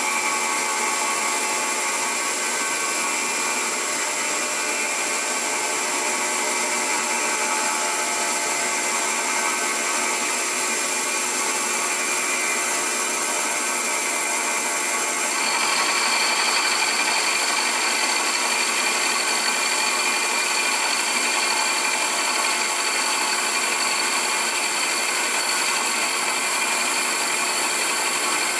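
Milling machine cutting a Volkswagen five-cylinder main bearing cap: a steady machining noise with several whining tones. About halfway through the sound changes, getting slightly louder with a new high whine.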